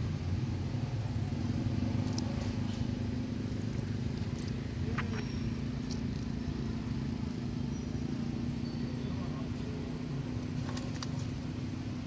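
A motor running steadily: a low rumble with a constant hum, with a few faint clicks over it.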